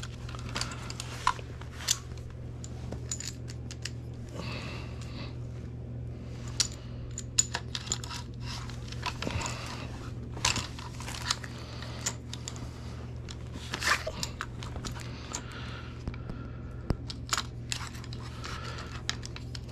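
Scattered clicks, knocks and rustles of shotguns being handled and shifted in and out of a padded soft gun case, over a steady low hum.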